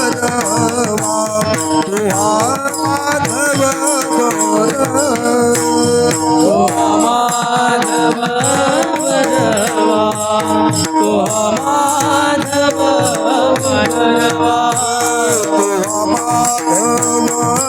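Devotional Marathi bhajan music: a steady held drone under a melody line that glides up and down, with hand-drum strokes and jingling rattle-like percussion keeping a fast, even beat.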